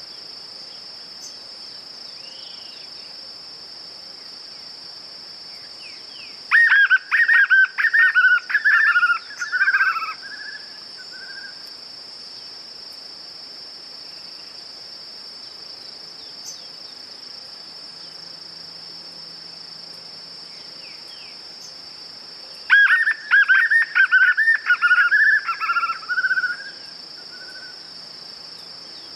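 White-eared puffbird (João-bobo) singing twice, each song a rapid run of whistled notes lasting about four seconds, the two songs about sixteen seconds apart. A steady high-pitched insect drone continues underneath.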